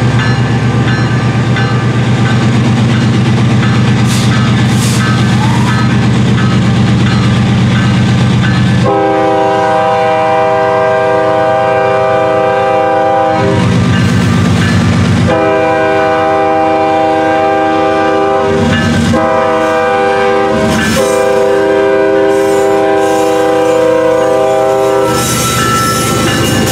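Kansas City Southern GE ES44AC diesel locomotive approaching with its engine running loudly. About a third of the way in, its multi-tone air horn sounds long, long, short, long, which is the grade-crossing signal, as the locomotive draws alongside.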